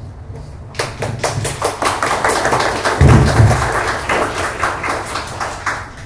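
Audience applauding at the close of a talk. The clapping starts about a second in and dies away near the end, with a low thump about halfway through.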